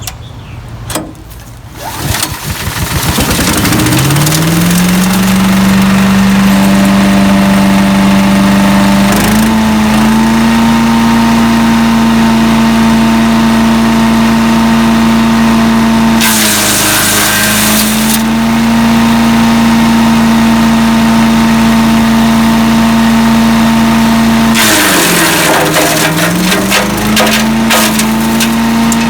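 Landworks 7 hp wood chipper-shredder's gasoline engine catching about two seconds in, climbing in speed and running steadily, with a step up in speed a few seconds later. Twice the engine briefly drops in pitch under load while a loud rushing, shredding noise comes in: material is going through the chipper.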